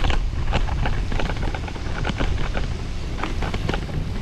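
Wind buffeting the microphone as a steady low rumble, with irregular clicking rattles from a bicycle riding over a cracked concrete lane.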